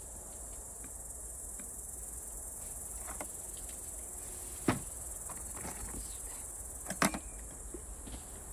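Steady high-pitched chirring of insects in the surrounding grass. Over it come a few knocks of dishes being handled, a sharp one about halfway through and a louder clatter near the end.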